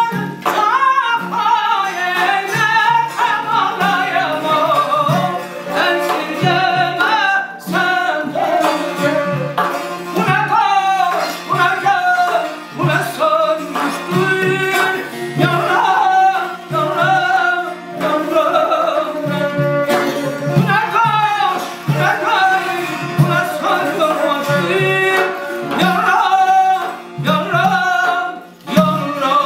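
Male voice singing Azerbaijani mugham in Segah with bending, ornamented phrases, over a gaval frame drum, a long-necked lute, a kamancheh spike fiddle and a double-headed drum beating a steady rhythm.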